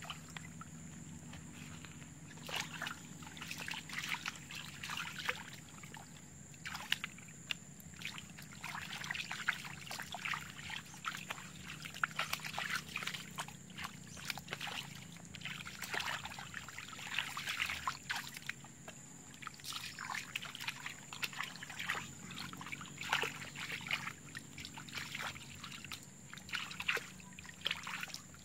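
Feet and hands sloshing and squelching through shallow, muddy water: irregular splashes and wet crackles that come in clusters, in pursuit of fish caught by hand.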